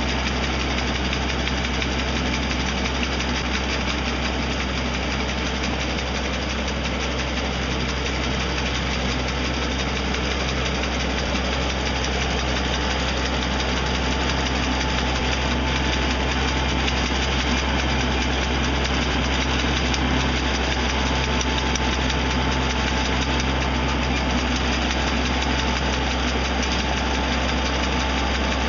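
Tractor engine running steadily, driving a boom-mounted hydraulic brush trimmer whose toothed cutter bar is working through brush, with a constant low hum and a dense mechanical rattle.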